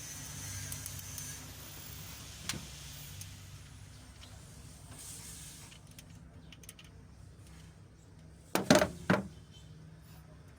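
Tool work on a 4D56 engine's timing belt tensioner while the belt is being tightened: a faint click about two and a half seconds in, then two loud knocks about half a second apart near the end, over a low steady hum.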